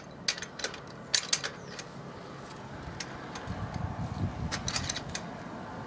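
Scattered light metallic clicks and clinks of a wrench being fitted to and working a small screw and nut on a bicycle. The clicks come in a cluster in the first second and a half and again near the end. A low rumble sits under them in the second half.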